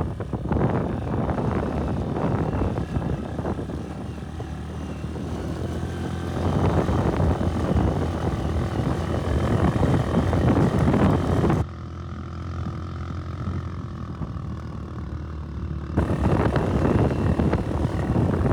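A motor vehicle's engine running while driving, mixed with wind buffeting the microphone. The sound changes abruptly twice, the high end dropping out for a few seconds from a little before the middle.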